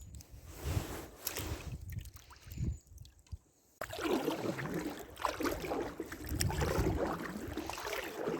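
Oars splashing and dipping in the water as a small boat is rowed, in irregular strokes. The sound cuts out suddenly about three and a half seconds in, then comes back louder and busier.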